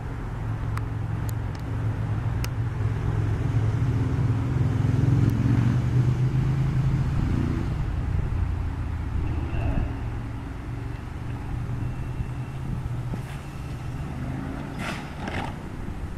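Hamburg S-Bahn class 472 electric train with a low, steady electric hum that swells over the first few seconds and then holds, a faint high whine in the middle, and a few sharp knocks near the end.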